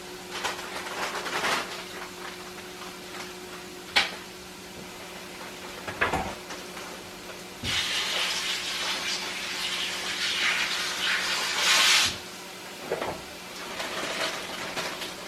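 Kitchen tap turned on and running for about four seconds as baby spinach is rinsed, then shut off, with a few sharp knocks and clicks of handling around it. A steady low hum runs underneath.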